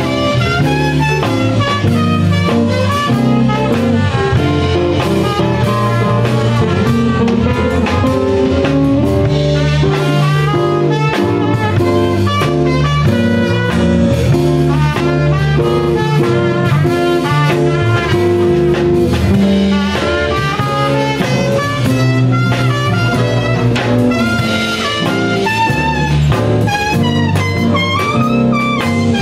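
Live band playing an instrumental blues-jazz number: trumpet and another horn carry the melody over a plucked electric string instrument and a drum kit.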